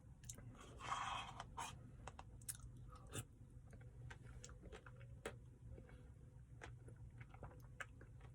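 A person eating a brownie-chunk ice-cream Blizzard: faint chewing with many small clicks and crunches, and one louder rustling scrape about a second in.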